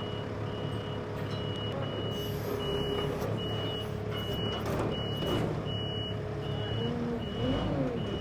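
Backup alarm on heavy equipment beeping steadily, about two beeps a second, over a running engine. A short rising-and-falling whine comes in near the end.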